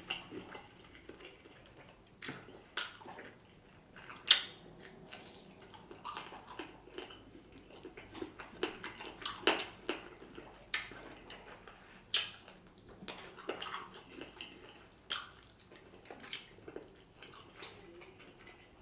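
A person eating chicken wings close to the microphone: irregular wet chewing, biting and lip smacks, heard as a scatter of short clicks and snaps.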